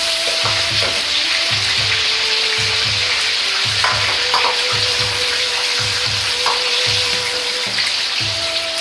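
Cut vegetables sizzling steadily in medium-hot oil in a wok as they are oil-blanched, with a ladle stirring them through the oil and knocking against the wok a few times.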